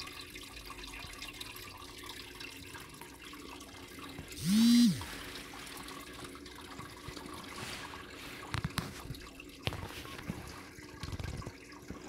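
Water from a double cascade aquarium filter splashing and trickling steadily back into the tank, stirring in bubbles that aerate the water. A brief, loud pitched sound rises and falls about four and a half seconds in, and a few sharp clicks come near the end.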